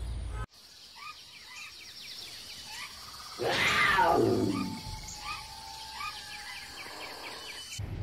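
Intro sound effects: small birds chirping over a steady high hiss, with a big cat's roar about three and a half seconds in that falls in pitch and is the loudest sound.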